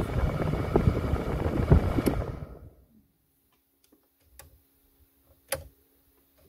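Mercedes W168 A-Class cabin blower fan running at full speed, then switched off about two seconds in and spinning down. A few sharp clicks from the fan-speed knob follow. The blower runs only on its top setting, 5, because the blower resistor has failed.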